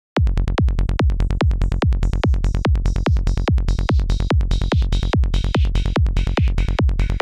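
Psytrance kick drum and rolling bassline played back from a DAW at about 140 BPM: each kick drops in pitch, with short bass notes filling the gaps between kicks. A hiss-like high layer comes in about a second in, and the playback starts and stops abruptly.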